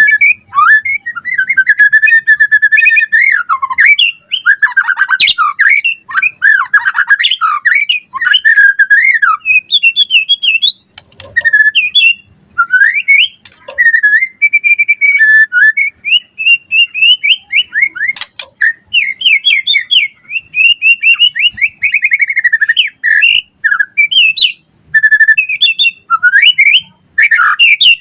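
White-rumped shama singing a long, fast, varied song of whistled notes and chattering phrases, with brief pauses between bursts.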